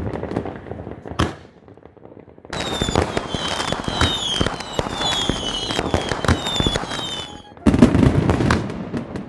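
Fireworks going off: crackling and popping that dies down briefly, then about five seconds of repeated falling whistles over dense crackle, and another loud crackling burst near the end.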